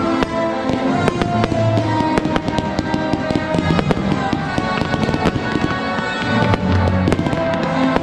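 Fireworks display: aerial shells and comets going off in many sharp bangs and crackles in quick succession, over music with sustained tones.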